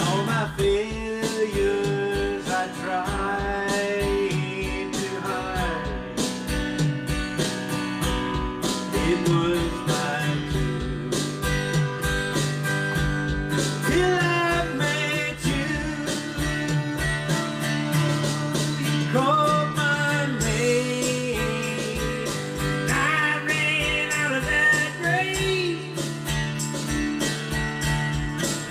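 A man singing a worship song while strumming an acoustic guitar in a steady rhythm.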